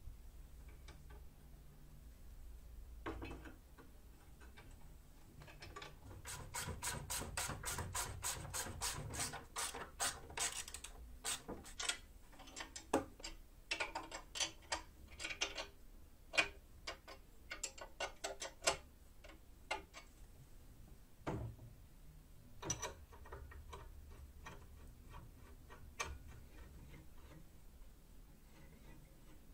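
Hand assembly of a homemade 2x72 belt grinder's tension and tracking arm: an even run of quick metal clicks, about five or six a second, for several seconds near the start, then scattered clicks and clinks of steel parts and tools, with a few isolated knocks near the end.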